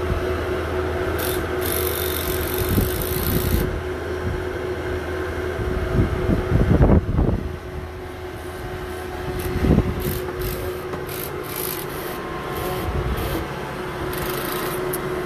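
Bobcat skid-steer loader's diesel engine running steadily, with heavy clunks about halfway through and again about ten seconds in.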